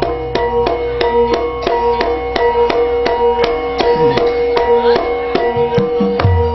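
Javanese gamelan ensemble playing an instrumental passage: tuned metal percussion struck in an even beat of about three strokes a second over a held tone. A hand drum adds low strokes that bend in pitch, about four seconds in and again near the end.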